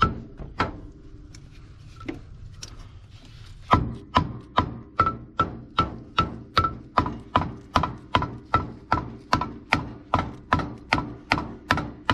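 Hammer striking the pulled steel frame rail of a 1994 Ford Ranger, each blow ringing briefly. A few separate strikes come first, then a steady run of about two and a half blows a second from a little under four seconds in. The hammering helps set the frame while it is held under tension so it does not spring back.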